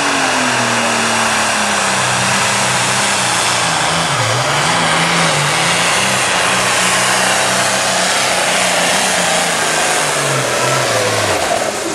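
International light pro stock pulling tractor's turbocharged diesel engine running hard under load as it drags a weight-transfer sled. The engine's pitch wavers, dips briefly about four seconds in, then falls away near the end as the pull finishes.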